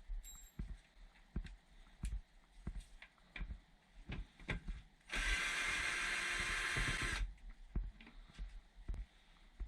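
A tool runs for about two seconds in the middle, loosening screws on the furnace's induced draft fan housing. Scattered light clicks and knocks of tools and metal parts being handled come before and after.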